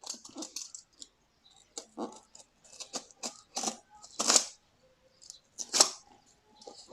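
Parcel packaging being handled and opened: irregular crinkling, rustling and tearing bursts, loudest about four and six seconds in.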